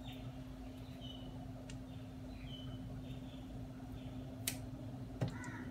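Light clicks and faint scrapes of a kitchen knife being handled at a sink: two sharp clicks near the end, the second with a brief ring, over a steady low hum.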